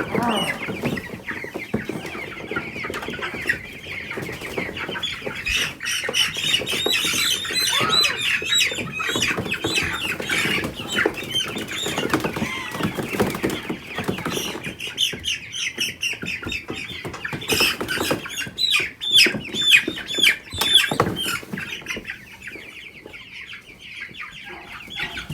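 A flock of young Cornish Cross broiler chickens peeping and squawking loudly, many short falling calls overlapping, with some wing flapping and scuffling as birds are caught. The calling thins out and gets quieter near the end.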